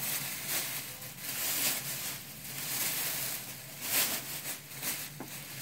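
A bag rustling and crinkling in irregular bursts as a tree skirt is packed back into it by hand, loudest about four seconds in.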